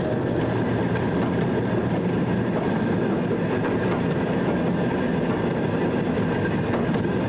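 Rail speeder (track motor car) running along the track, its engine and steel wheels on the rails making a steady running noise heard from on board.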